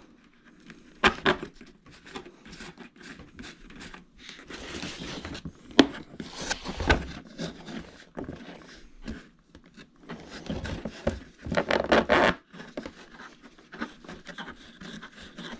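Irregular scraping, clicking and rustling of a screwdriver turning a long screw into the plastic and foam parts of an RC airplane, the screw still spinning without biting. The handling comes in scattered bursts, busiest near the middle and about two-thirds of the way in.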